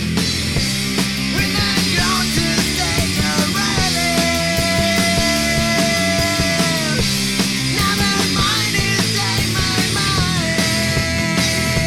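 Rock music with a steady beat and long held, sliding melody notes.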